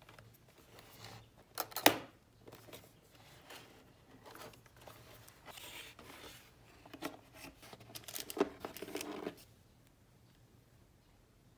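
Cardboard keyboard box being unpacked by hand: a sharp tap about two seconds in, the box sliding out of its cardboard sleeve with a soft hiss, then rustling of the packaging and plastic wrap from about seven to nine seconds in.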